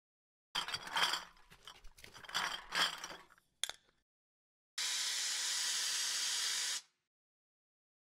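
Kitchen sound effects: cups and dishes clinking and rattling for about three seconds, then a steady hiss that lasts about two seconds and cuts off abruptly.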